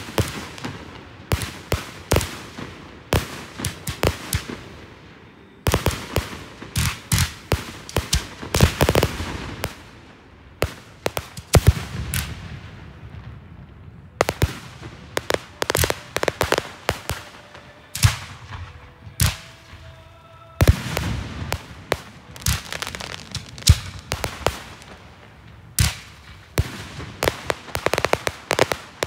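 Fireworks display: rapid volleys of sharp bangs and crackles, coming in dense clusters separated by brief lulls.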